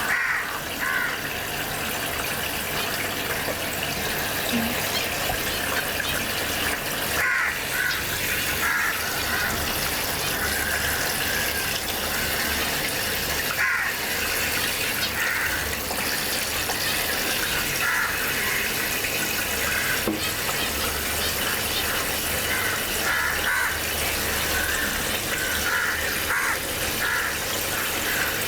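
Tap water pouring steadily into a cement tank as it fills.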